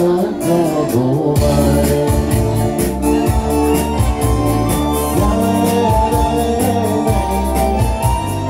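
A Bashkir retro song performed live through a PA system: a man sings into a microphone over an electronic keyboard backing track. The bass and beat come in about a second and a half in.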